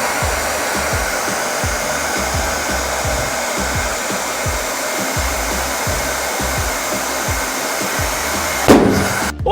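Electric hair dryer blowing steadily at full speed on an inflated balloon, with a low flutter under the rush of air. Near the end a short, loud burst sounds and the blowing cuts off.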